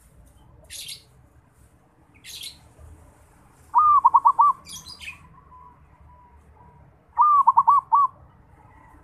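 Zebra dove (perkutut) cooing twice: two short phrases of about four quick, rolling coos each, with a faint drawn-out note between them. This is a local bird still learning its song. Brief faint chirps from small birds sound now and then.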